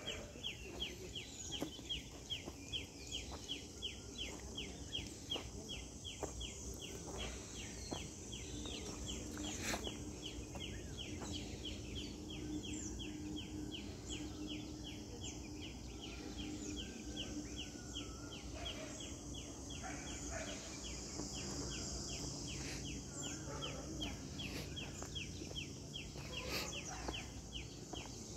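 Rural outdoor morning ambience: a fast, even ticking call repeating about four times a second throughout, over a steady high hiss.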